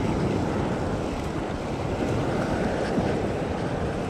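Steady wind buffeting the microphone over the wash of sea swell surging against a rock ledge.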